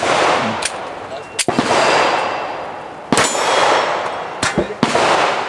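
Glock pistol shots fired at steel plates, several shots a second or more apart, each followed by a long echoing wash, with steel plates clanging when hit.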